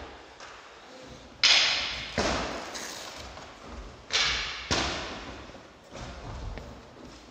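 Sparring sticks striking: four sharp cracks in two pairs, each dying away in the echo of a large hall.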